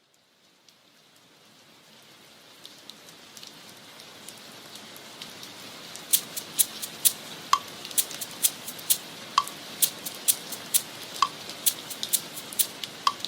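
Rain falling, its steady hiss slowly fading in, joined about halfway by sharp water drips roughly twice a second, a few of them with a short pitched plink.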